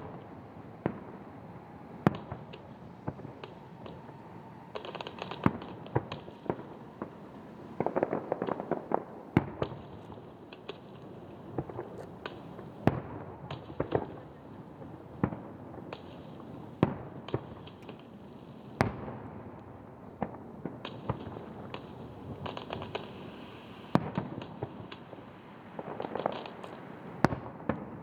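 Aerial fireworks shells bursting: sharp booms at irregular intervals, about one a second, with stretches of dense crackling about eight seconds in and again near the end.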